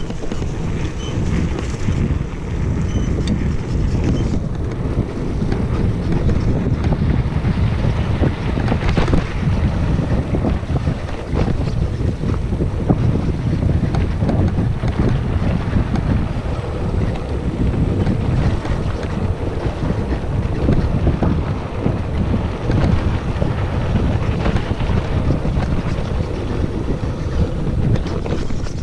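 Wind buffeting the microphone of a handlebar-mounted camera on a moving bicycle, with a steady low rumble of tyres rolling over a dirt forest track and small knocks as the bike jolts over bumps.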